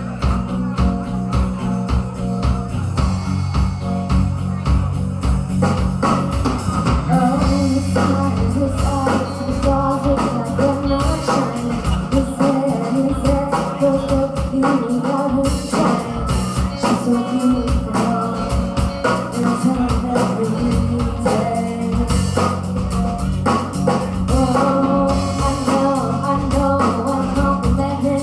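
Live rock band playing: a woman singing lead over electric guitar and a drum kit keeping a steady beat.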